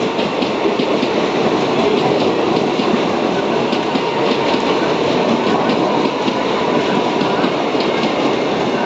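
Train running on the track: a steady rumble of wheels on rail with many sharp clicks over the rail joints.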